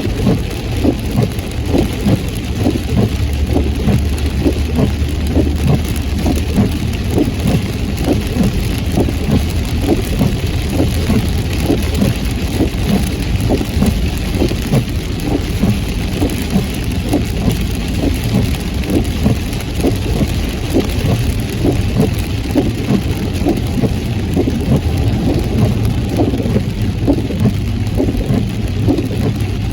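Heavy rain falling on a moving car, a dense, steady patter of drops over road and engine noise. A low rumble under the rain drops off about six seconds in.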